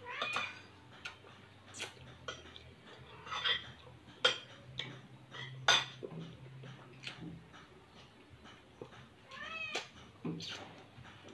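Scattered sharp clinks and taps of a plate being handled while someone eats by hand, and a cat meowing once near the end.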